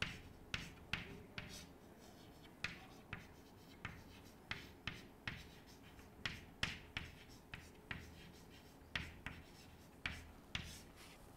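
Chalk writing on a blackboard: faint, light taps and short scratches as each stroke lands, coming irregularly, about two a second.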